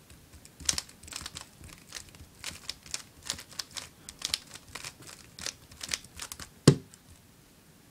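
Guhong v2 3x3 speedcube being turned quickly by hand: a rapid, irregular run of plastic layer clicks as the cube is scrambled, with one louder knock near the end.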